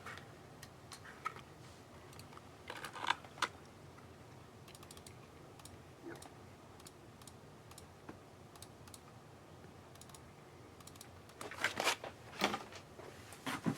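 Sparse short clicks and taps in small bursts, a few about three seconds in and a denser, louder run near the end.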